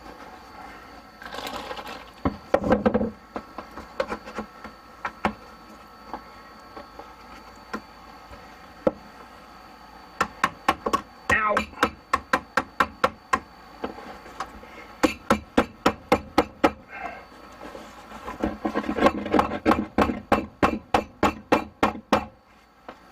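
A hammer driving small nails into wood, in several quick runs of taps at about three or four strikes a second, with a few heavier knocks near the start.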